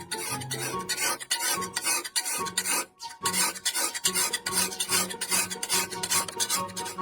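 Quick repeated rasping strokes of a tool scraping back and forth over a hard surface, several strokes a second with a short pause partway through, over background music.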